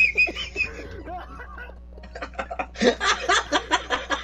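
Young men laughing hysterically: a high-pitched, wheezing laugh at the start, then a burst of rapid, breathy cackling from about three seconds in.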